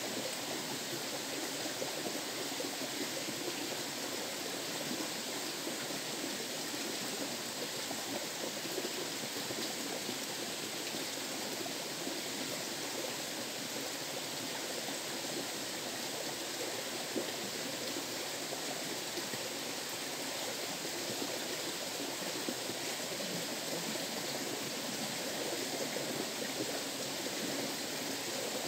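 Flowing river water rushing steadily, an even constant noise.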